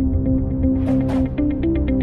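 Electronic outro music: held synth notes over a deep bass, a whoosh about a second in, then a fast ticking beat.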